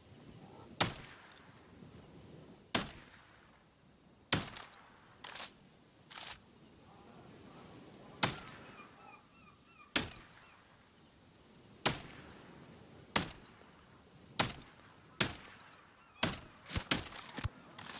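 Shotgun shots fired one after another, about fifteen sharp reports with a short echo after each, at irregular gaps of one to two seconds and coming faster near the end.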